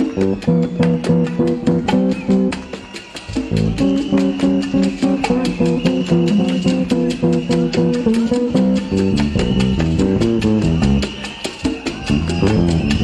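Electric bass guitar solo in a live salsa performance: quick runs of low notes over a steady clicking beat, thinning out briefly about three seconds in.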